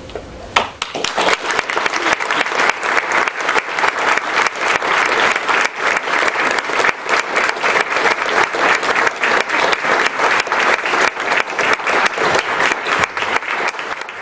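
Audience applauding in a lecture hall, the clapping starting about half a second in and staying steady and dense.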